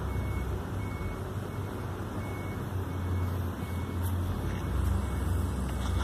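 Steady low mechanical rumble with a faint high electronic beep repeating about every 0.7 seconds, like a vehicle's reversing alarm.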